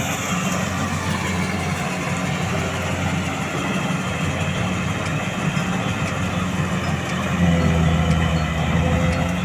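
Kubota rice combine harvester running steadily under load as it cuts and threshes rice, a continuous engine drone with a mechanical rattle over it. The drone grows louder about three-quarters of the way through.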